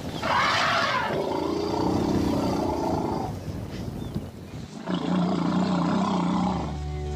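African elephant calling twice: a loud, high trumpeting blast that trails off into a lower roar lasting a few seconds, then a second, lower roar about five seconds in.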